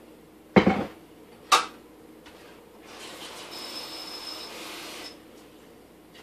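A plastic Vitamix blender jar packed with fruit knocks down onto a kitchen counter: two hard knocks about a second apart, the first louder and deeper. A soft hiss follows for about two seconds.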